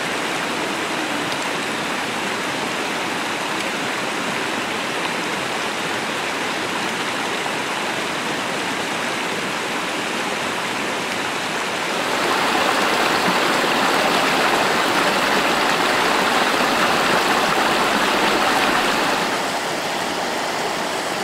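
Stream water running steadily, an even rushing with no other sounds; it grows louder about twelve seconds in, stays up for about seven seconds, then drops back.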